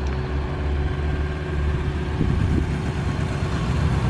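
Motorcycle engine approaching along the street over a steady low engine hum, growing louder toward the end.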